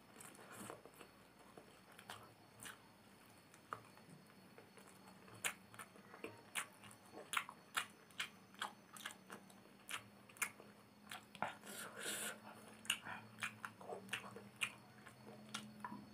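Close-miked eating of instant noodles and fried chicken by hand: chewing and biting with sharp wet mouth clicks and crunches, sparse at first and coming thick and fast from about five seconds in.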